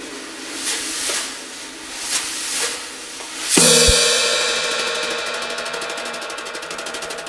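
Drum kit played solo: quiet swelling cymbal and drum strokes, then a loud cymbal crash about three and a half seconds in that rings on and fades slowly with a fast flutter.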